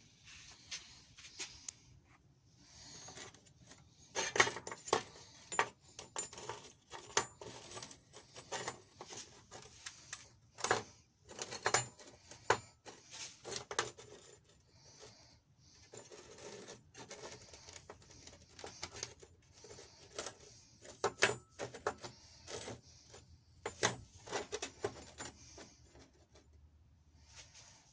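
Irregular metallic clinks, taps and light clatter of metal parts being handled, with quieter gaps between; no grinder is running.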